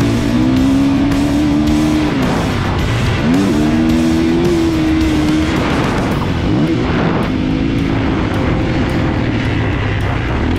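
A 2021 Kawasaki KX450's single-cylinder four-stroke engine under hard throttle. Its note drops as the throttle is chopped and climbs sharply again, twice: about three seconds in and again near seven seconds.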